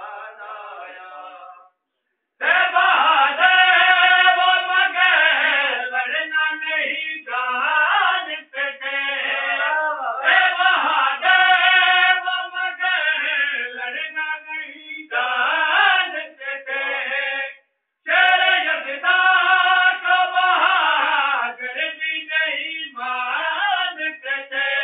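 Unaccompanied devotional chanting by a man's voice, in long held phrases, with short breaks about two seconds in and again near eighteen seconds.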